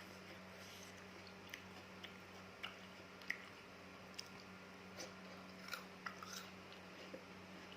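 Close-miked chewing of raw fruit dipped in palm-sugar chili sauce: quiet, scattered wet crunches and mouth clicks over a faint steady low hum.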